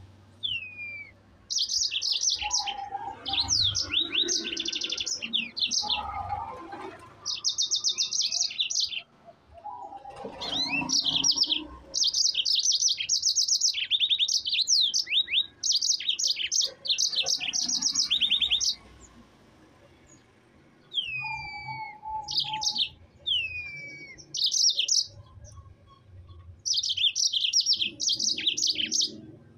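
Yellow-fronted canary (Mozambique singer) singing in long bursts of very fast, high trills and rolls, mixed with a few single down-slurred whistles, with a short pause about two-thirds through.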